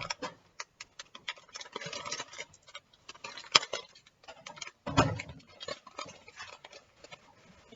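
Kitchen utensils and dishes being handled while plating food: scattered light clicks and clinks, a sharp knock about three and a half seconds in and a duller thump about five seconds in.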